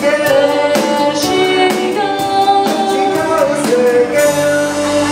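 A woman singing a pop song live with a band, acoustic guitar and a steady drum beat behind her. Her sung line ends about four seconds in and the band holds the closing chord.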